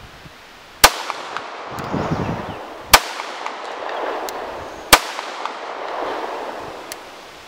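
CZ 75B pistol fired three times, about two seconds apart, each shot followed by a rolling echo.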